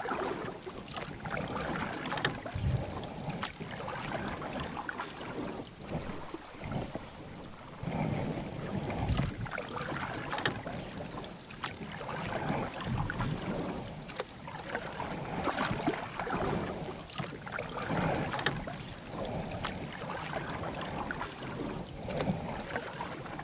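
Kayak paddling on a river: water splashing and washing in surges every couple of seconds, with a few sharp knocks and wind on the microphone.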